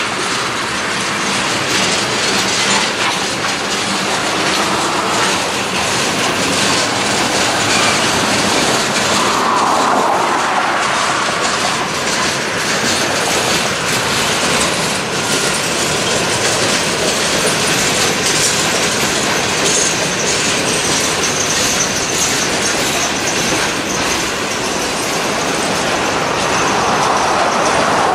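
Freight train of tank cars and covered hoppers rolling by close up: steel wheels rumbling and clicking steadily over the rail joints. A thin high wheel squeal rises for a few seconds past the middle.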